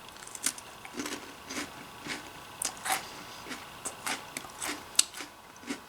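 Crunchy butter coconut biscuit being chewed, with short crisp crunches about twice a second.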